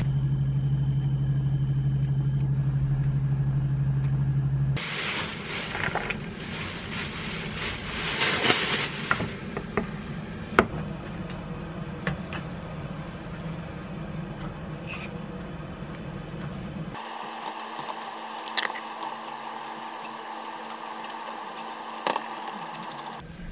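A steady low hum, then a metal spoon scraping, rubbing and clinking against a wire-mesh strainer as doenjang (soybean paste) is pressed through it into broth in a pot.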